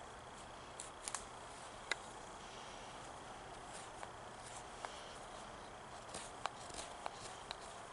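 Knife carving a wooden spoon blank: scattered small, sharp clicks and scrapes of the blade cutting into the wood, over a faint steady hiss.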